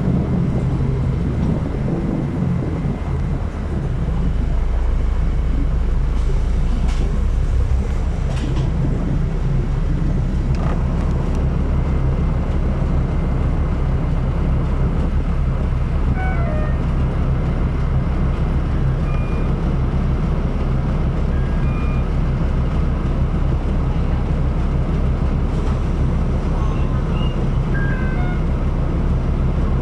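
City bus engine running, heard from inside the cabin at the back of the bus: a loud, steady low drone that swells slightly about four seconds in. A few faint, short high-pitched tones come through in the second half.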